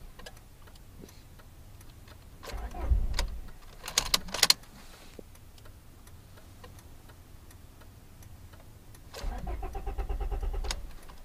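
1999 Honda Prelude's starter cranking the engine in two short bursts without it catching, with a few sharp clicks between the attempts. It is a crank-but-no-start fault that the owner traced to the distributor.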